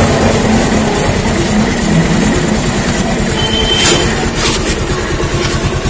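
A Bajaj Pulsar 220F's single-cylinder engine runs in gear on the stand, driving the rear chain round. The chain clatters steadily as it runs through a plastic chain-cleaning brush.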